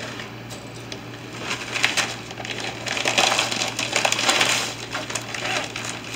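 Plastic zip-top bag crinkling and rustling as it is handled and opened, with chopped vegetables dropping into a stainless steel mixing bowl; loudest about three to four and a half seconds in.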